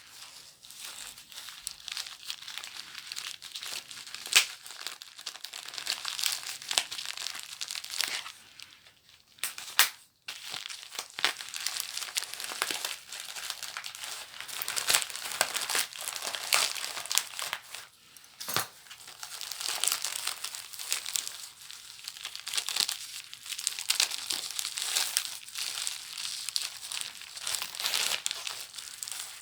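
Paper and packaging from a book parcel being crumpled and torn open by hand, a continuous crackling with a few sharp clicks and a brief pause about ten seconds in.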